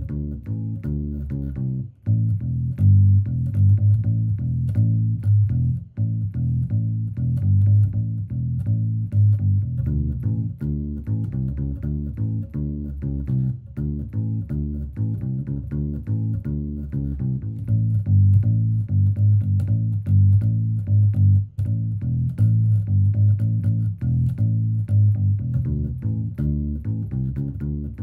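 Background music carried by low plucked notes in a steady rhythm, with brief breaks about two, six and twenty-one seconds in.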